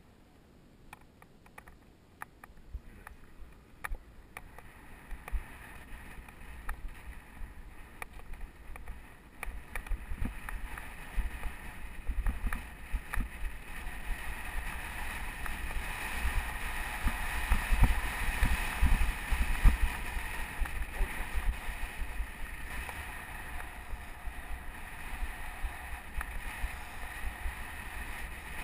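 Mountain bike riding over a dirt trail, heard from a helmet-mounted camera: wind rumbling on the microphone, with tyre and trail noise and small clicks and rattles from bumps. It grows louder from about ten seconds in.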